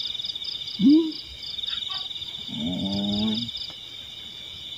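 Steady trilling of night insects, with a faster pulsed chirp above it. A person's brief rising voice sound comes about a second in, and a longer wordless vocal sound comes near the middle.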